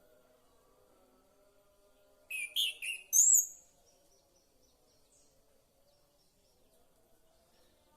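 Pet songbird giving one quick burst of loud, high chirps ending in a short whistled note, about two seconds in and lasting just over a second.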